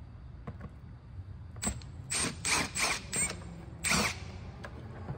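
Cordless driver running in five short bursts over about two seconds, each with a high whine, backing out the screws that hold the connector plate; a single click comes just before the first burst.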